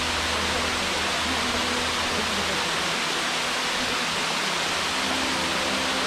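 Curtain waterfall pouring over layered rock ledges: a steady, even rush of falling water that does not change.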